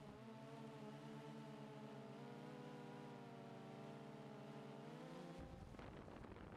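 Quadcopter drone's motors and propellers humming faintly, several steady tones together, then cutting off suddenly about five seconds in and leaving a faint hiss.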